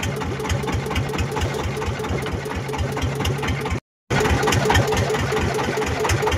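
Small fishing boat's engine idling with an even chugging, about six beats a second. The sound drops out for a moment about four seconds in, then the engine carries on unchanged.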